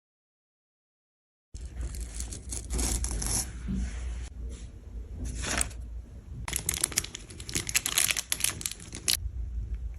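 Close-miked crinkling, tearing and scraping handling noises from makeup repair work. They start abruptly after about a second and a half of dead silence, with a dense run of crackling clicks about two thirds of the way through.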